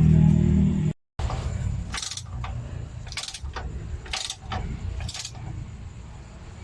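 Background music that cuts off about a second in, then a low rumble with four short metallic jangling clinks, about a second apart.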